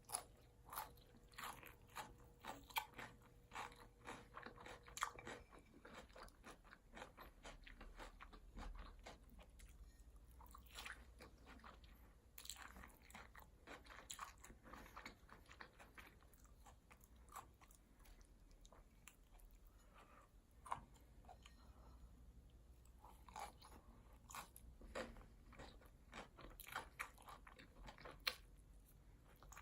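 A person chewing and crunching food close to the microphone: a steady run of small crisp bites and mouth clicks, some louder than others.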